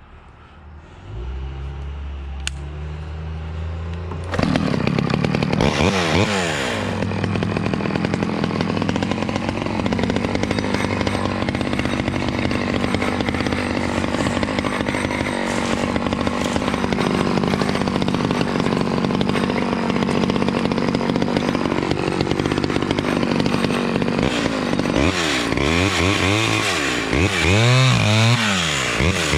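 Vintage Stihl 011 two-stroke chainsaw idling low from about a second in, then going to full throttle at about four seconds and running steadily under load through a long cut. Near the end it is revved up and down several times.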